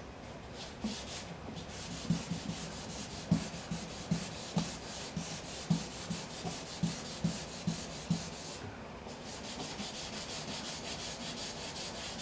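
Sandpaper on a hand sanding block rubbing back and forth over automotive paint in quick, even strokes, leveling paint runs. There is a light knock on many strokes and a short pause about nine seconds in.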